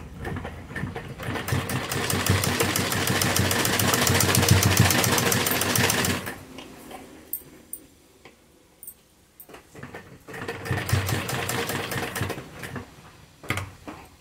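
Sewing machine stitching lace trim onto fabric in two runs: a long run that picks up speed over the first couple of seconds and stops about six seconds in, then a shorter run of about three seconds near the end. A few light clicks fall in the pause between runs and just after the second.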